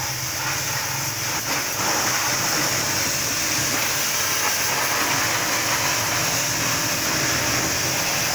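Small electric pressure-washer pump running steadily, its high-pressure jet spraying against a motorcycle's rear wheel and exhaust: a constant hiss of spray over the pump's steady hum.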